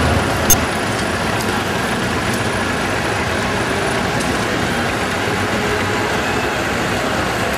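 Steady, noisy din of vintage tractors running in a street parade, with one sharp click about half a second in.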